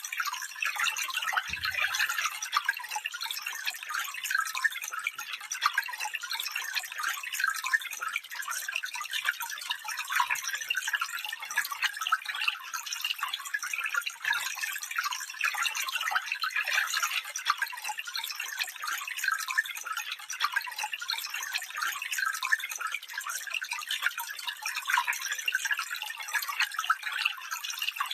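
Stream water running steadily, a continuous trickling and splashing that sits high, with no low rumble.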